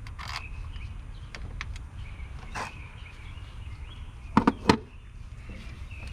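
Hand tools clicking and clinking against metal while screws are removed during a starter replacement: a few scattered sharp clicks, then three quick loud ones about two-thirds of the way in.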